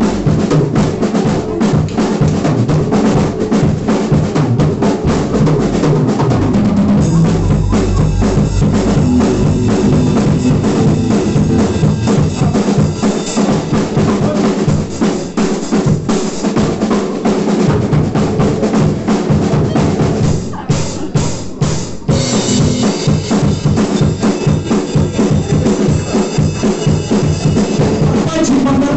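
Live rock band playing an instrumental passage, the drum kit to the fore with bass drum and snare keeping a steady beat. There is a short break about two-thirds of the way through, after which the high end grows brighter.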